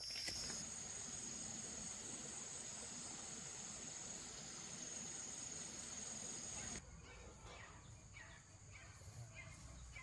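Insects, crickets or cicadas, keeping up a steady high-pitched drone over an even rustling noise. The rustling stops abruptly about two-thirds of the way through, leaving the drone and a few faint short chirps.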